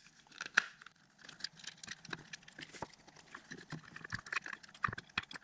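Hands working a plastic turn-signal housing and its nuts onto a threaded lamp rod: irregular small clicks, taps and light rustling as the parts are forced together.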